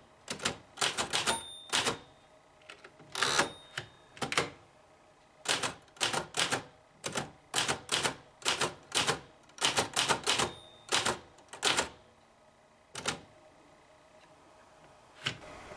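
Typing on a 1930 Remington Portable No. 3 typewriter: the typebars strike the platen in quick irregular runs of keystrokes, thinning to a couple of single strikes near the end.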